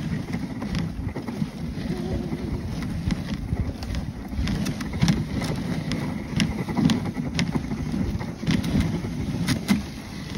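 Dog sled moving over packed snow: a steady low rumble from the runners on the trail and wind on the microphone, with scattered sharp clicks.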